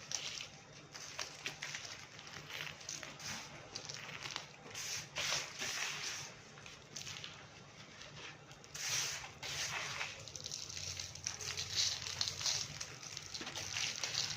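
Dry red clay being crumbled, giving an irregular crackle of many small breaks with a few louder bursts of crumbling along the way.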